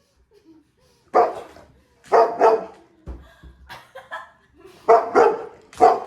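A dog barking: about six short, sharp barks in three bunches, with quiet gaps between.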